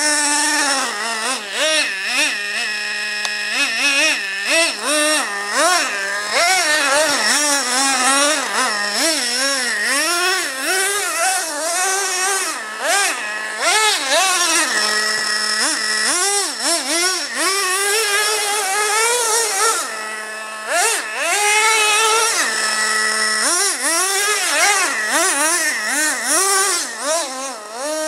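Small 2.5 cc nitro engine of a Revo RC monster truck, revved up and down in quick rises and falls as the truck is driven. It drops back to a steady idle a few times, around the middle and again about two-thirds of the way through.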